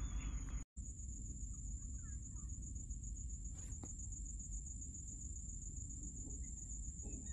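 Faint background: a steady high-pitched tone over a low hum, cutting out completely for a moment just under a second in.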